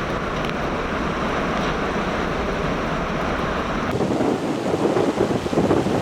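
Hurricane-force wind and driving rain, a steady rushing noise. About four seconds in it switches abruptly to a harsher, gusting rush that swells and drops.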